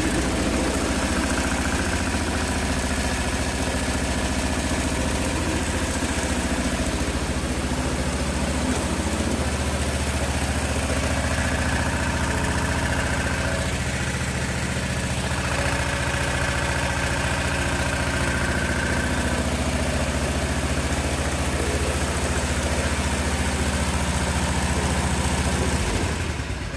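Cub Cadet 1650 Hydrostatic garden tractor's single-cylinder Kohler engine running steadily at idle, then shut off near the end. It runs smoothly, a good runner.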